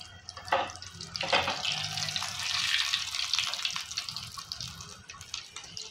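Spring rolls deep-frying in hot ghee in a wok: a dense sizzling and crackling of bubbling fat that grows louder after about a second and a half.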